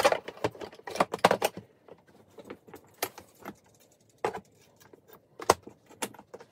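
Metal parts of a disassembled Barrett M82A1 rifle clinking and knocking against a hard plastic rifle case as they are laid into it: a quick run of clicks in the first second and a half, then single knocks every second or so.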